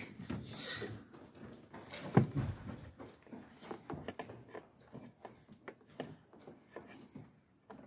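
Hands handling and fitting a clutch master cylinder and its parts: scattered light clicks, taps and rubs, with one sharper knock about two seconds in.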